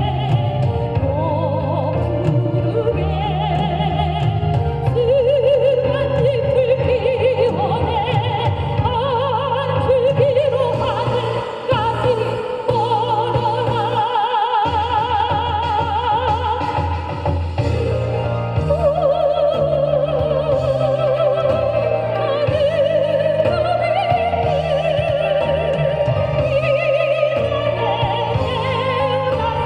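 A singer performing a song over an accompaniment track, holding long notes with heavy vibrato above a steady bass line.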